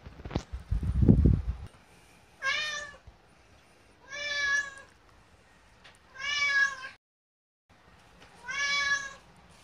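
A domestic cat meowing four times, each meow drawn out and rising then falling in pitch, spaced about two seconds apart: begging to be fed. Near the start, a loud low rumble of knocks.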